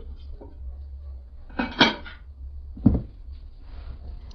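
Kitchenware clattering: a quick cluster of knocks about a second and a half in, then a single heavier knock near three seconds, over a steady low rumble.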